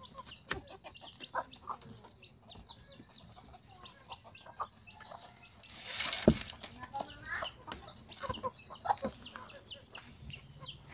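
Birds chirping: a steady run of short, high, falling chirps several times a second, with scattered knocks and clicks and a louder rustle about six seconds in.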